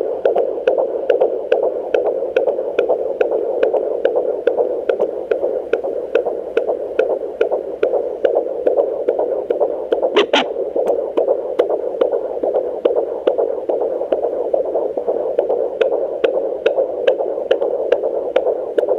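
Fetal doppler picking up an unborn baby's heartbeat: a strong, fast, even pulse over a steady hiss, about 141 beats per minute. A brief scratchy crackle about halfway through, like the probe shifting on the skin.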